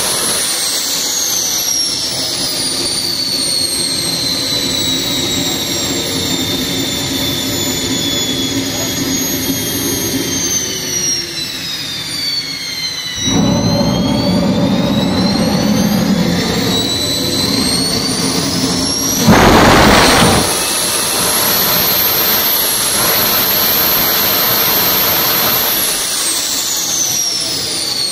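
Homemade turbojet built from a truck turbocharger. Its high turbine whine falls steadily as the engine slows, then rises again as it is throttled up, with a deep combustion rumble. About two-thirds of the way in there is a loud burst lasting about a second; the whine then holds high and starts to fall near the end.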